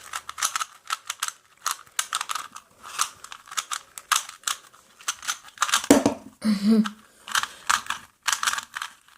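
A new, out-of-the-box Rubik's Cube being scrambled by hand: its plastic layers are turned fast in a rapid, irregular run of clicks and clacks, several a second. The cube is still very tight and stiff, not yet broken in.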